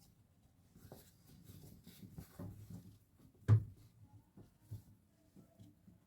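Scattered light knocks and clicks of household objects being handled, with one sharper, louder knock about halfway through.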